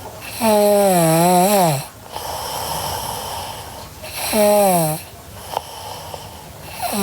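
A sleeping girl snoring in a slow rhythm: a long pitched, wavering snore about half a second in, a shorter one about four seconds in, with breathy breathing between them.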